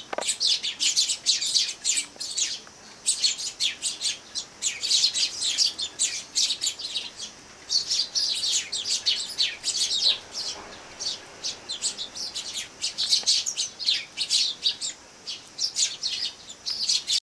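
A flock of Eurasian tree sparrows chirping busily, many short overlapping chirps at once, with brief lulls about three and seven seconds in.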